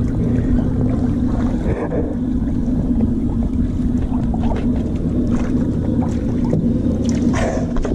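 Water sloshing and splashing as a husky wades through a shallow plastic kiddie pool, heard from a camera at the waterline, with scattered small splashes over a steady low hum and a louder splash near the end.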